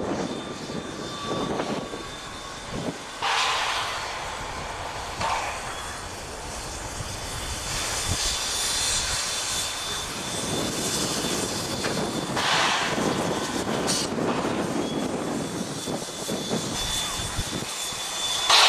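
Narrow-gauge (760 mm) steam locomotive drifting slowly into a station with its train: a steady rush of hissing steam, broken by a few sharper bursts of steam noise about three seconds in, around twelve seconds in, and loudest at the very end. A faint high, thin whine comes and goes over it.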